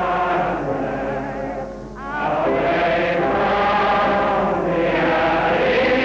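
A woman singing a slow popular song at a microphone, holding long notes, with a short break between phrases about two seconds in. The sound is thin and narrow-band, as on an old film soundtrack.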